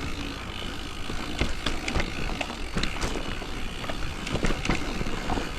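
Electric mountain bike riding down a rough dirt trail: tyres rolling over roots and stones, with irregular sharp knocks and clatters from the bike over the bumps and wind rumble on the microphone.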